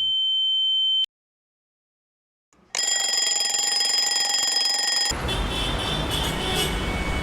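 A steady high-pitched ringing tone that cuts off suddenly about a second in, followed by a second and a half of dead silence. Then a loud alarm-like ringing with several steady pitches starts, and from about halfway a loud rushing noise joins it.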